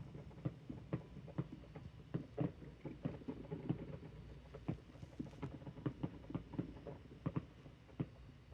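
Distant fireworks: an irregular run of small pops and thuds, two or three a second.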